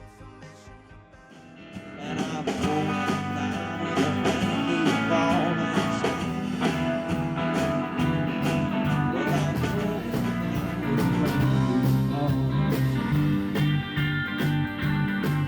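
Band music with guitar, quiet at first and swelling up about two seconds in.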